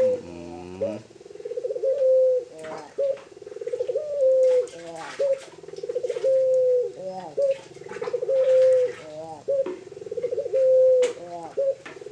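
A Barbary dove (puter) cooing over and over. Each phrase starts with short rolling notes and ends in a long held coo, and the phrases come about every two seconds.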